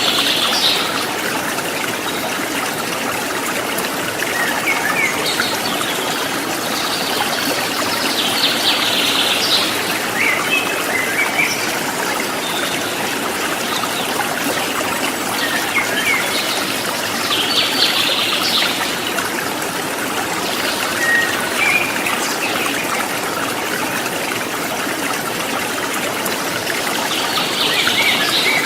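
A rocky river flowing steadily, water rushing and trickling over stones, with short bird chirps breaking in every few seconds.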